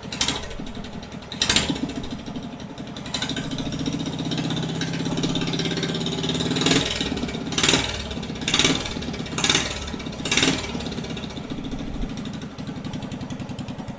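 Straight-piped 340 cc single-cylinder go-kart engine running unevenly on a newly fitted 34 mm flat-side carburettor, with about seven short, loud bursts from the exhaust. It is running rough, most of them in a cluster in the middle.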